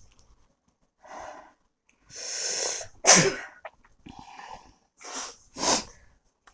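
A man's heavy hissing breaths through the mouth, a string of separate blows against the burn of a very hot chili chip, with a sharp sneeze-like burst about three seconds in, the loudest sound.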